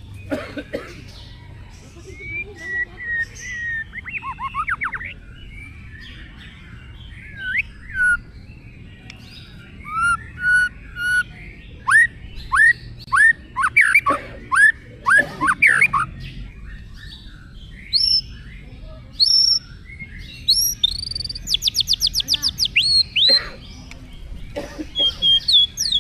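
A songbird singing a varied song of whistled notes and sharp chirps, with runs of quick downward-slurred whistles in the middle and a fast rattling trill a little after the middle of the second half.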